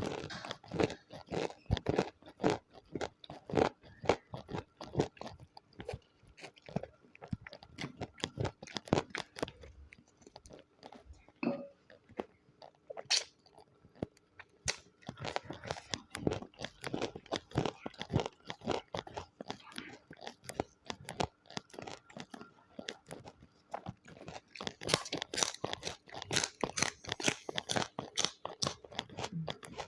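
Close-miked chewing of crunchy food: a dense, irregular run of crunches and bites, busiest near the end.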